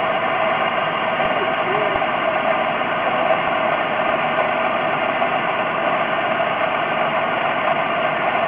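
Pontiac Grand Prix GTP's supercharged 3.8-litre V6 idling steadily on its first run after a fresh rebuild, running smoothly.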